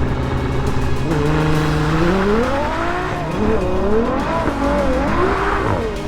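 Ferrari 812 GTS's naturally aspirated 6.5-litre V12 running at low revs, then revving up from about a second in. Its pitch climbs, drops and climbs again several times.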